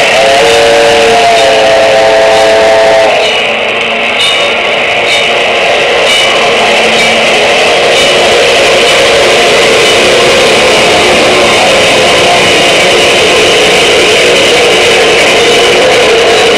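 Steam locomotive whistle holding a steady chord of several tones, which cuts off about three seconds in. Loud, dense background music follows.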